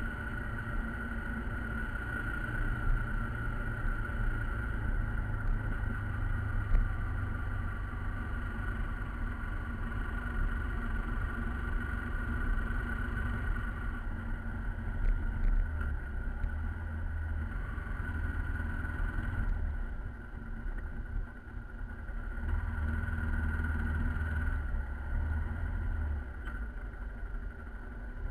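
Motorcycle riding on the road, its engine and road rumble steady. The sound eases off about twenty seconds in and builds again a couple of seconds later.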